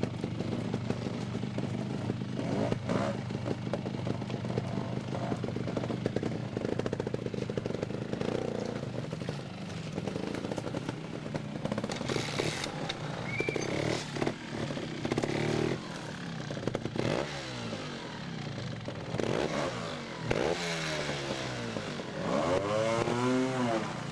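GasGas two-stroke trials motorcycle engine running and being blipped as the bike climbs over rocks, with scattered knocks and clatter. The revs rise and fall repeatedly near the end.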